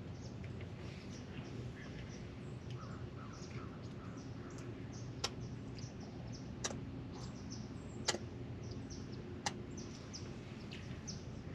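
Birds chirping with many short high calls over a steady low background rumble. Four sharp clicks, about a second and a half apart, stand out in the middle.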